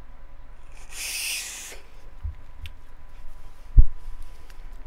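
A person drawing on a sub-ohm vape: a hiss of air pulled through the device about a second in, then a short low thump near the end as the cloud of vapour is blown out.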